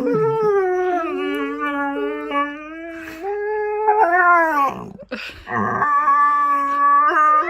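A dog howling in long drawn-out notes: one howl held for over four seconds, then a brief break and a second long howl starting at nearly the same pitch.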